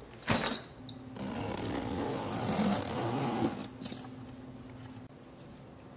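A soft fabric travel bag being handled: a sharp knock just after the start, then about two and a half seconds of rustling and scraping, and a single click near four seconds in.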